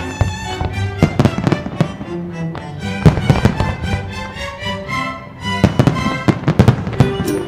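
Aerial firework shells and comets bursting in a run of sharp bangs, coming in clusters about one second in, about three seconds in and again near the end, over the display's music soundtrack.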